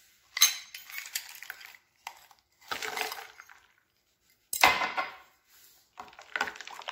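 Ice cubes tipped from a steel ladle clattering into a glass bowl of liquid, then a metal spoon stirring and clinking against the glass. The clinks come in several short separate bursts, the loudest a little past halfway.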